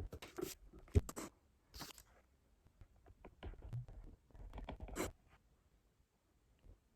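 Faint scattered clicks and brief scrapes of small things being handled, stopping about five seconds in.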